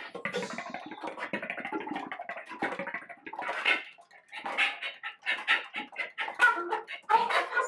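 Flute played with extended techniques: airy, breath-heavy tones and noises, fairly continuous at first. After a short break about four seconds in, they break into a string of short, choppy bursts.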